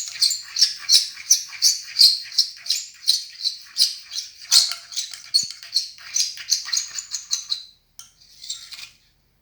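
Slime being stirred briskly with a spoon as the activator makes it thicken: a fast run of squelching, clicking sticky sounds, about four a second, that stops near the end.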